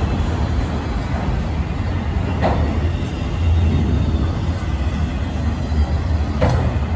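Freight train of enclosed autorack cars rolling past: a steady low rumble of steel wheels on rail, with two brief sharper metallic sounds, one about two and a half seconds in and one near the end.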